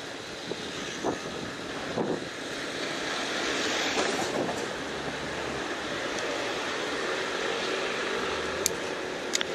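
City street traffic: a passing vehicle's noise swells to a peak about four seconds in and eases off again, with a few sharp clicks near the end.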